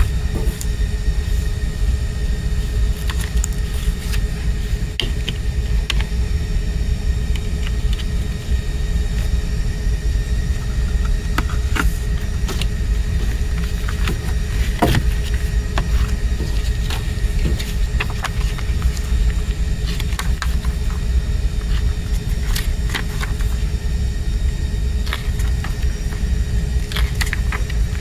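A steady low rumble throughout, with scattered soft clicks and rustles of paper and cardboard as a CD digipak, lyric sheet and booklet are handled.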